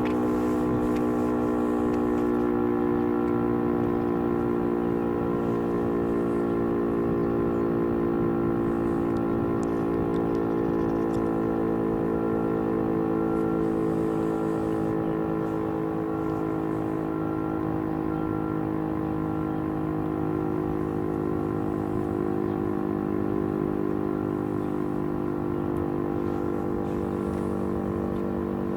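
Federal Signal STH-10 dual-tone outdoor warning siren sounding a steady chord, the alert signal of a siren test, easing slightly in level toward the end.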